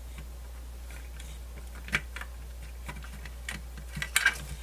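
Plastic radio parts being handled and pushed into their plastic case: scattered light clicks and taps, with a sharper click about two seconds in and a quick cluster of clicks near the end.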